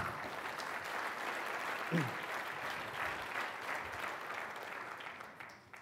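Audience applauding in a large hall, fading away near the end, with a brief falling voice from someone about two seconds in.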